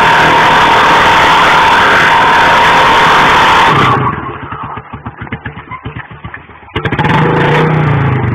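Royal Enfield Bullet single-cylinder engine held at high revs, with a steady screech from the rear tyre as the bike spins on the asphalt. About four seconds in, the revs drop to an uneven, thumping low-speed run. The engine revs up again briefly near the end.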